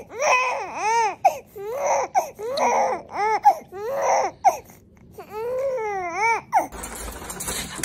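Infant crying in short, high, rising-and-falling wails, about two a second, breaking off suddenly near the end.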